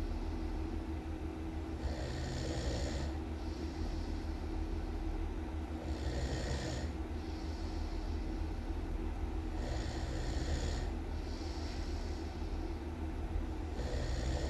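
A person snoring loudly in a slow, even rhythm, about one breath every four seconds. Each breath comes in two parts, a louder hissing snore, a brief break, then a softer hiss, over a steady low rumble.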